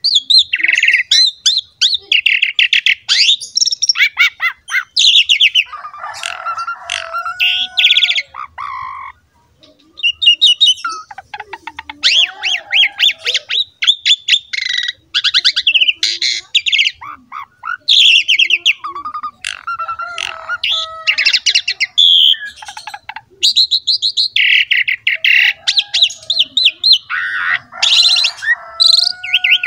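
Asian pied starling (jalak suren) in full song: a long, varied run of rapid chattering trills, clear whistles and harsh squawks, with a short pause about nine seconds in.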